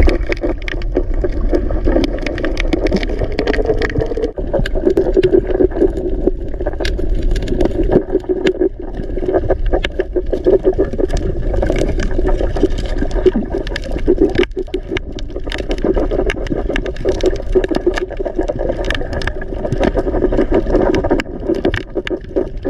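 Underwater sound picked up by a camera in the sea: a steady, muffled rush of water with many sharp clicks and crackles scattered through it.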